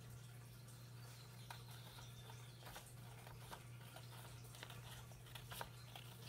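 Scissors cutting through a folded sheet of thin printer paper: faint, irregular snips, over a steady low hum.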